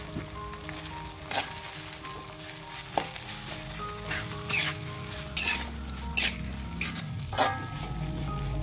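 Vegetables and chilli sauce sizzling as they are stir-fried in a metal wok, with a metal spatula scraping and knocking against the pan about eight times.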